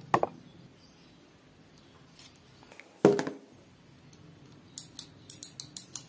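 8 mm T-spanner working the clamp bolt of a hazard switch on a motorcycle handlebar: metal clicking and knocking as the clamp is tightened. A single louder thud comes about three seconds in, then a quick run of sharp metallic clicks near the end.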